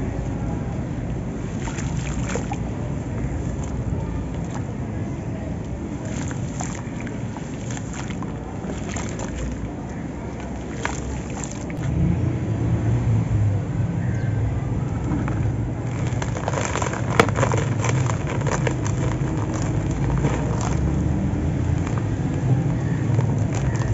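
Hands squishing and pushing wet, gritty grey sand through shallow water in a plastic basin, with scattered crackles. From about 12 s in, the hands crumble moulded dry sand cylinders and grit pours and rattles down, crackling more densely later on. A steady low rumble runs underneath.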